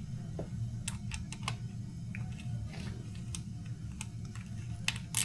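Irregular light clicks and taps of hand tools and small metal parts being handled, about ten in all, over a steady low hum.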